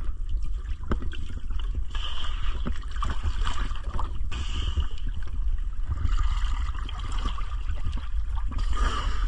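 Water sloshing and gurgling at a boat's waterline, close to the microphone, over a steady low rumble.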